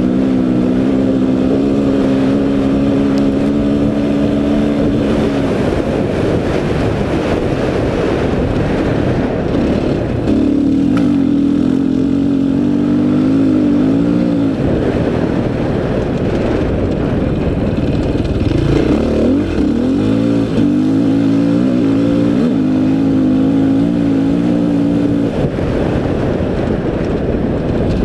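Dirt bike engine running hard under way on a sand track. It holds steady revs for several seconds at a time, and its pitch dips and climbs again between the steady stretches as the rider works the throttle and gears, over a constant rushing noise.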